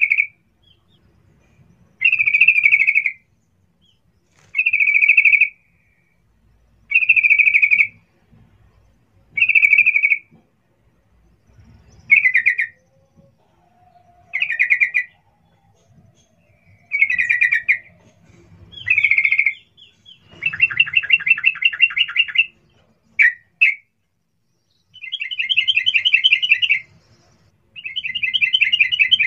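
Yellow-vented bulbul (trucukan) calling: short bubbly phrases repeated about every two and a half seconds, then, from about two-thirds of the way in, longer fast rattling trills with a couple of short notes between them.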